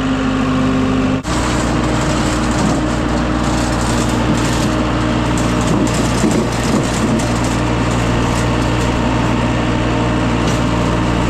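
Engine of a small piece of construction equipment running steadily. An abrupt cut about a second in leads to the engine continuing with more clatter and hiss.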